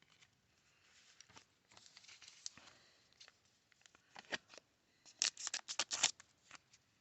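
Paper baseball cards being handled and flipped through: a faint rustle, then a quick run of crisp snaps and ticks about five seconds in.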